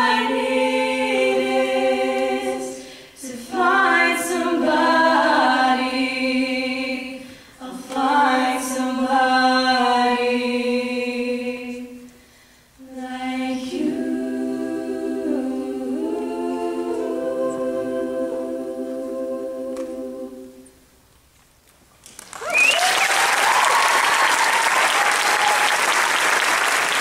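All-female a cappella group of eight singing the closing phrases of the song in sustained multi-part chords, the last chord held and fading out about 21 seconds in. After a short pause, an audience breaks into steady applause.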